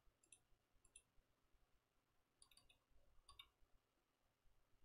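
Near silence, broken by faint clicking from a computer mouse scroll wheel in four short clusters of ticks as a web page is scrolled.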